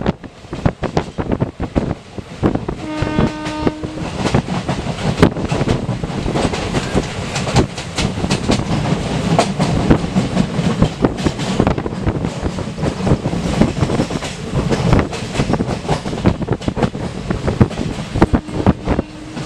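Passenger train running at speed, heard from a coach window: a steady rumble with wheels clattering over the rail joints. The train's horn sounds for about a second around three seconds in, and again briefly near the end.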